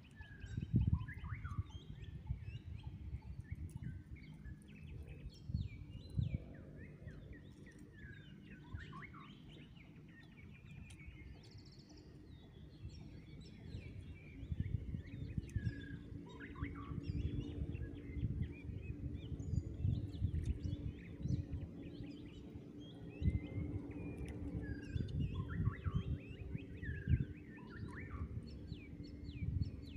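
Small birds chirping and calling in short, scattered notes and quick slides, over an uneven low rumble with irregular bumps.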